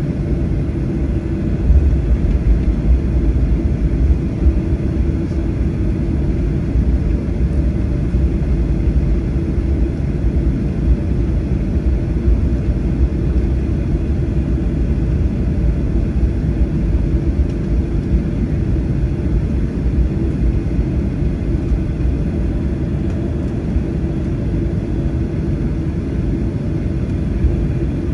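Cabin noise of a Boeing 737-800 taxiing, its CFM56-7B engines at idle: a steady low rumble with a faint hum.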